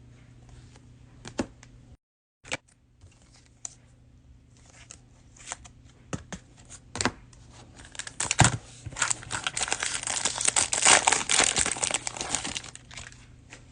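Plastic cello-pack wrapper of trading cards being handled, torn open and crinkled: scattered sharp crackles at first, then a dense burst of crinkling for about four seconds from around eight seconds in.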